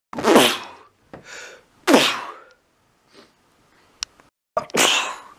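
A person sneezing three times in quick succession, each sneeze loud and sudden, with quieter breaths drawn in between and a short click just before the third.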